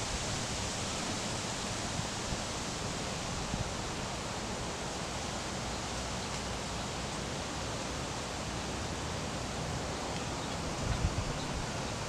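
Steady, even hiss of outdoor background noise, with a few soft low bumps near the end.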